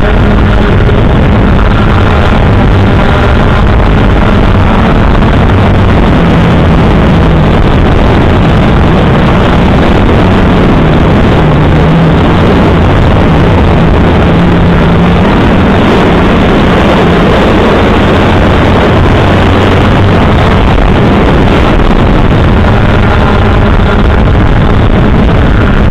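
3DR multirotor drone's electric motors and propellers running loudly, heard through the camera's microphone on board, a dense rushing noise with a low hum that drifts slightly in pitch.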